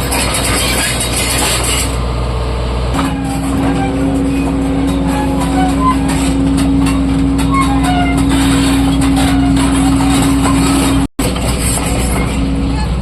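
Heavy diesel quarry machinery, an excavator or loading truck, running with a steady low drone and a held whining tone over it. The sound breaks off for an instant about 11 seconds in.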